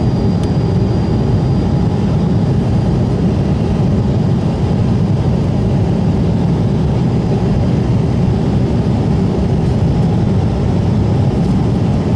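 Steady engine hum and airflow heard inside the cabin of an Embraer E190 airliner, from its GE CF34-10E turbofan engines, deep and even, with a faint high whine over it.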